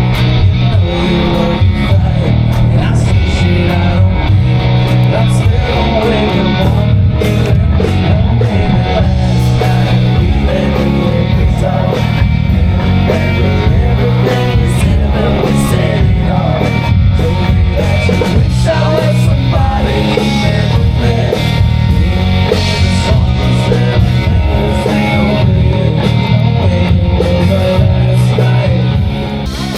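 Live rock cover band playing, with guitar to the fore.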